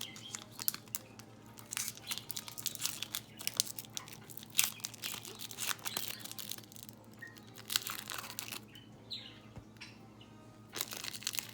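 Trading card pack wrapper crinkling and tearing as a pack is opened, with irregular crackles and clicks from the cards and wrapper being handled.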